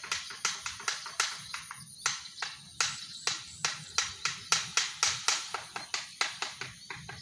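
Bird-scaring rattle of old tin cans filled with small stones, jerked by a pull rope so they clatter in quick sharp strokes, about three a second. It is the traditional way of scaring grain-eating munias and sparrows off ripening rice.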